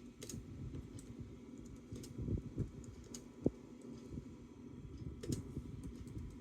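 Typing on a Bluetooth keyboard: irregular key clicks over a low background rumble.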